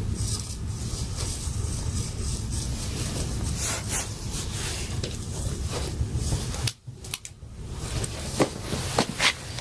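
Chainsaw running as it shaves across the end grain of a wood slab. The sound cuts out briefly about seven seconds in and builds back, with a few sharp clicks near the end.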